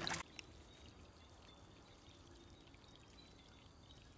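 Faint, steady trickle of water in a shallow stream.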